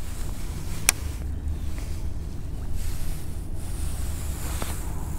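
Wind rumbling on the microphone, low and steady, with a single sharp click about a second in.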